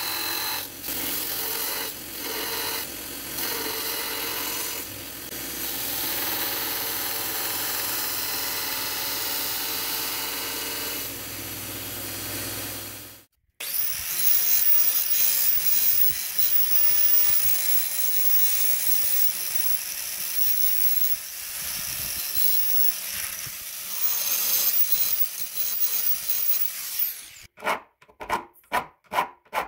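A small bench belt grinder running with a bed-frame steel knife blank pressed against the belt; it stops abruptly about halfway. Then an angle grinder's cutoff wheel runs steadily while cutting the steel, and near the end a round hand file rasps across the blade's edge in quick back-and-forth strokes, about two or three a second.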